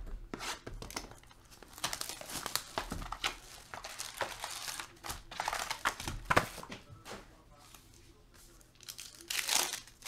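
Foil wrappers of 2018 Panini Unparalleled football card packs crinkling and rustling as a stack of packs is handled. Near the end there is a louder burst of tearing as a pack is ripped open.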